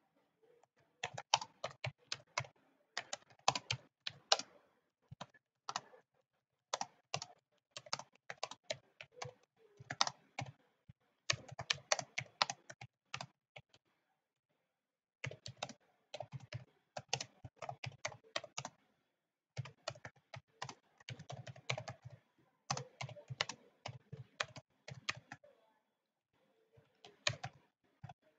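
Typing on a computer keyboard: quick runs of keystrokes, with a short pause about halfway through and another near the end.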